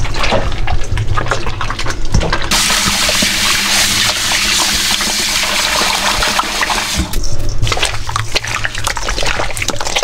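A raw octopus being kneaded and rubbed with salt to scrub off its slime: irregular wet squelching and slapping. In the middle a stream of water runs for several seconds as it is rinsed, and then the rubbing resumes.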